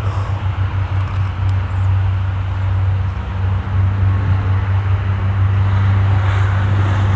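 Jet airliner approaching the airport at low altitude, its engines a low steady drone that grows slightly louder, with a second low tone joining about three seconds in.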